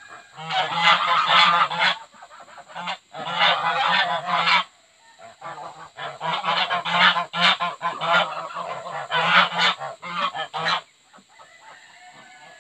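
Geese honking in three long bouts of loud, overlapping honks, the last lasting about five seconds and stopping shortly before the end.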